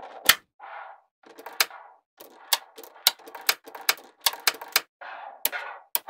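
Small metal magnet balls snapping together with sharp clicks as strips of them are pressed onto a block of balls, about two clicks a second at an irregular pace. Between the clicks there is a softer rattling rustle of the balls shifting under the fingers.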